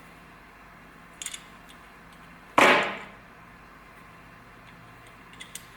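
A single sharp metallic clank about two and a half seconds in, ringing briefly, with a few faint clicks of hand work on metal parts before and after.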